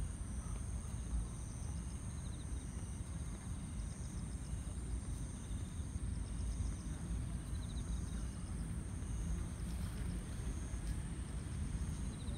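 Insects chirping in short repeated trills, faint and high, over a steady low rumble of outdoor background noise.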